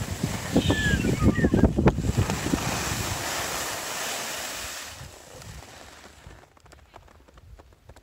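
Wind buffeting the phone's microphone and skis hissing over snow during a run, dying down after about five seconds. A brief high, falling whistle sounds about a second in.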